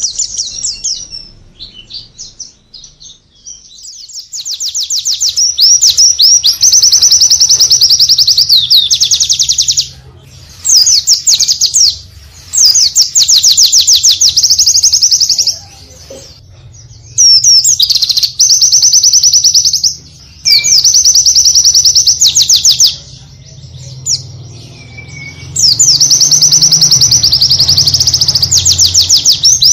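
White-eye (pleci) singing: rapid, high-pitched trilling song phrases delivered in loud runs of two to five seconds each, about six runs separated by brief pauses.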